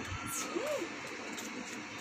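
Steady outdoor background hiss, with one faint, brief rising-and-falling call about half a second in.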